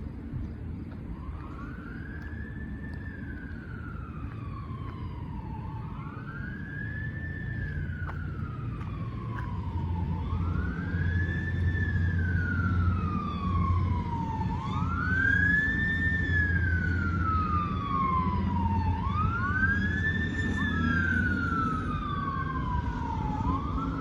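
Fire engine and ambulance sirens wailing as they pass: each wail climbs quickly and slides slowly back down, about every four seconds, with a second siren overlapping it from about halfway in. A heavy engine rumble grows louder through the middle.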